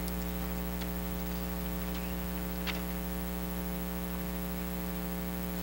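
Steady electrical mains hum in the sound system, with a few faint clicks.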